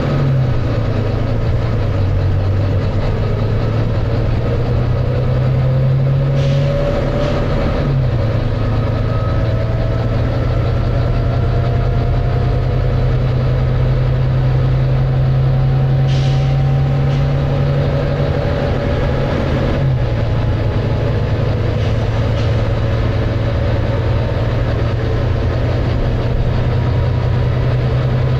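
Volvo B9TL double-decker bus's diesel engine working hard, heard from inside the bus, with a slowly rising whine over it; the engine note steps down about 8 and 20 seconds in. Short air hisses from the bus's air system come in pairs, about 6 seconds in and again about 16 seconds in.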